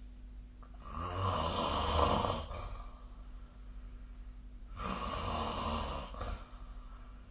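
A sleeping person snoring: two snores about four seconds apart, each lasting about a second and a half, the first a little louder.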